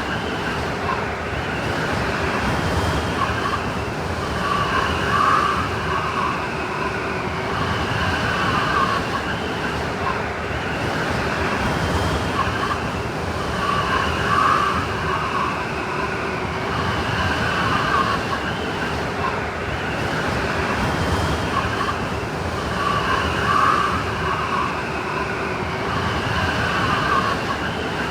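Snowstorm wind: a steady rushing with whistling, wavering tones that swell and fade every four to five seconds.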